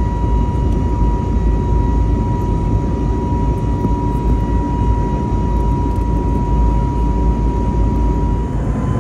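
Cabin noise of an Airbus A320neo in flight: a steady low rumble of engines and airflow, with a thin steady whine over it.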